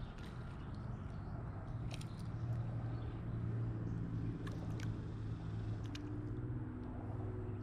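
Steady low drone of highway traffic, with a few short sharp clicks over it.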